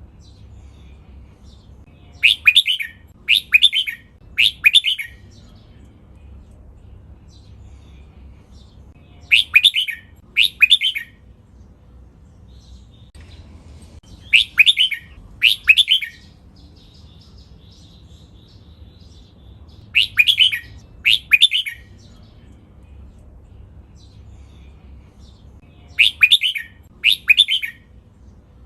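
Red-whiskered bulbul singing: short, loud warbled phrases in clusters of two or three, each cluster repeated every five to six seconds, over a faint steady low rumble.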